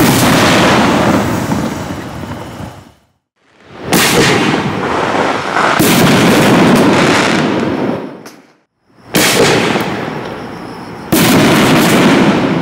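Neon Diablo 5-inch canister shells bursting one after another. Each burst is a sudden loud bang with a long rumbling echo that dies away. There are about four bursts, with short silent gaps between them.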